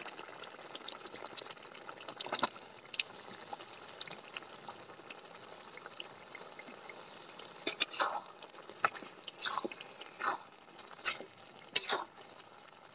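Spice masala simmering in a steel kadai with a faint steady hiss as soaked soya chunks go in, then, from about eight seconds in, a spatula scraping and knocking against the pan in several loud short strokes as the chunks are stirred through.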